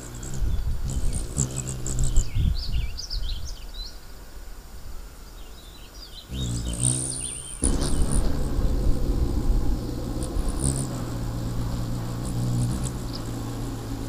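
Rufous hummingbirds at a feeder: the low buzzing hum of their wings comes and goes, louder in the second half, with bursts of high squeaky chip and chatter calls near the start and again around the middle, over wind rumble on the microphone.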